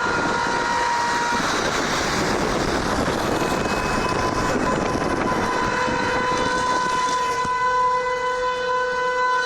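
A vehicle horn sounding long, steady blasts, with a loud rushing noise over it in the middle as the horn drops out for a few seconds.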